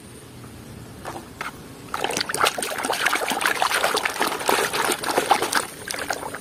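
Water splashing and sloshing in a plastic basin as a hand swishes and scrubs a toy car under the surface, starting about two seconds in.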